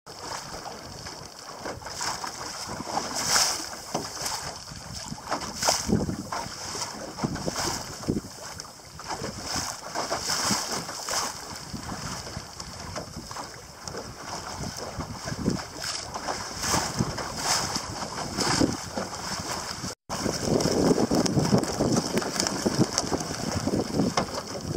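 Wind buffeting the microphone over the rush and splash of water along the hull of a small sailing boat under way, coming in surges every second or two. About twenty seconds in the sound drops out for a moment, then comes back louder and fuller.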